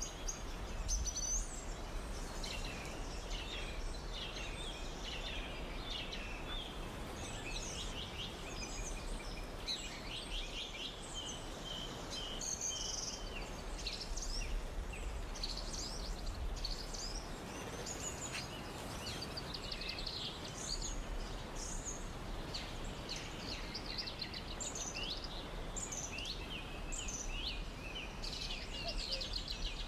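Many small songbirds chirping and trilling continuously, over a steady background hiss with a low hum.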